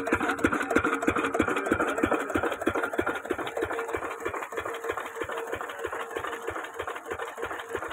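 Lister 8 hp single-cylinder diesel engine running steadily, with a fast, even beat of firing strokes.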